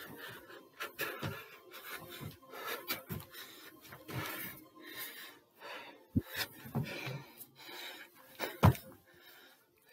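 Heavy panting and thuds of feet landing as a man jumps up onto a stair step over and over in a small stairwell, roughly one landing a second, with a sharp thud near the end.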